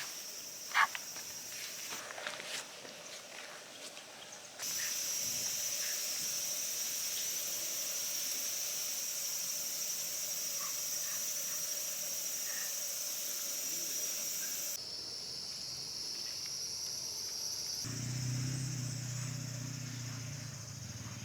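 Forest ambience of insects chirring in a steady high band, changing abruptly several times. A low steady hum joins near the end.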